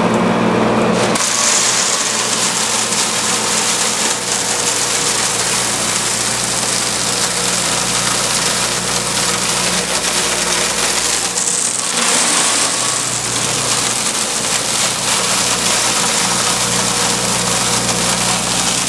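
Vincent VS8 8-inch shredder running: its electric motor hums steadily while the rotor spins through the teeth of a stationary comb, shredding soaked raw pistachios. The grinding noise thickens about a second in and then holds steady.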